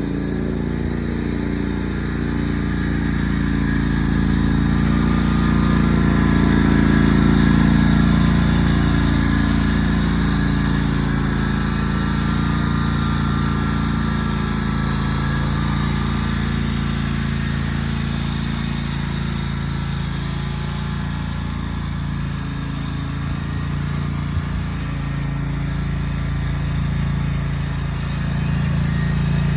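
Riding lawn mower engine running steadily, its sound swelling louder around a quarter of the way in and again near the end as the mower moves about the yard.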